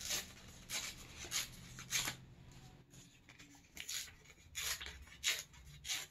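Paper being torn into strips by hand: a run of short ripping sounds, roughly one every two-thirds of a second, with a pause of nearly two seconds in the middle.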